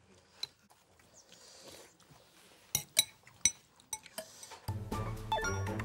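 Cutlery and dishes clinking at a meal: four sharp clinks about three seconds in, after a quiet start. Background music with a steady bass comes in near the end.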